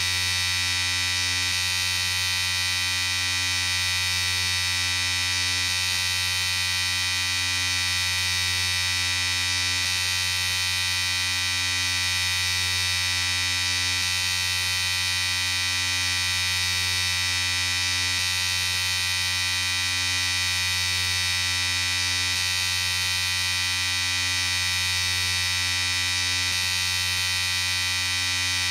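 Electric shaver running with a continuous, steady buzz.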